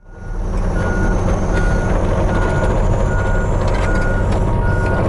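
Diesel heavy-equipment engine running steadily with a backup alarm beeping in a regular rhythm, a little more than one beep a second.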